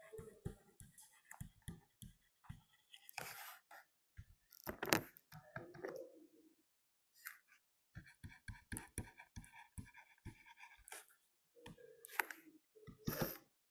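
Faint tapping and scratching of a stylus writing on a tablet, in short irregular bursts with small clicks.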